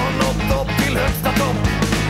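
Background music: a rock-style song with guitar and a steady beat.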